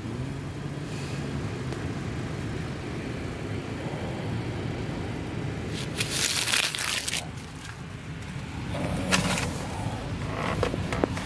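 A thin paper receipt crinkling and rustling in a hand, loudest in a burst about six seconds in, with smaller crinkles near the end, over the steady low hum of a running car.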